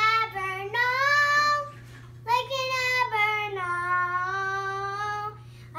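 A young girl singing unaccompanied, holding long drawn-out notes in two phrases with a short break about two seconds in.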